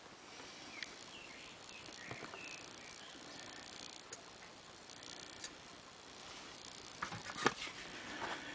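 Faint, scattered light clicks and taps of a lock pick and tension wrench against a Kwikset pin-tumbler rim cylinder as the tools go in, with a few sharper clicks near the end.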